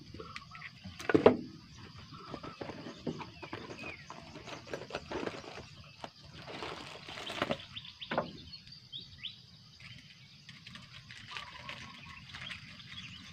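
Knocks and rustles of fishing gear and a bucket being handled in a small boat, the loudest knock about a second in, with a few short bird chirps now and then.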